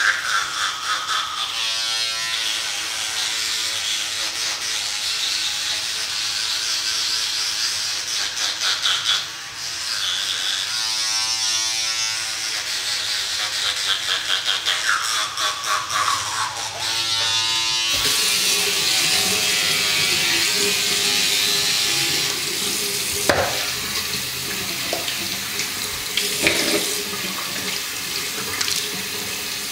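Electric toothbrush buzzing against the teeth. About eighteen seconds in it stops, and a bathroom tap runs steadily into the sink for rinsing, with a few sharp knocks near the end.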